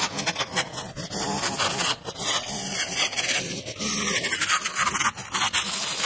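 String trimmer cutting dry grass and weeds, the spinning line crackling and scratching irregularly as it strikes the stalks.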